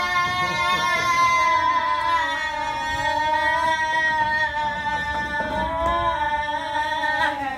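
A voice holding one long, loud 'aaah' on a single note that wavers slightly, as if shrieking on a roller coaster. It cuts off near the end.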